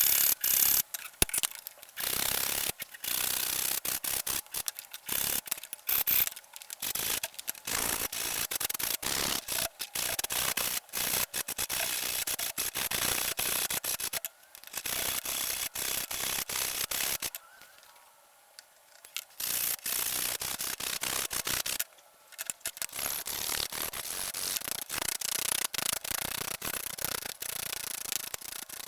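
Quick rubbing and scraping strokes on the steel of an old monkey wrench as it is hand-cleaned of rust after electrolysis. The strokes come in spurts, with a couple of brief pauses.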